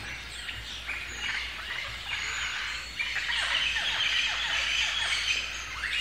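Rainforest birds chirping and calling together: many short notes sliding downward, overlapping, busiest in the second half.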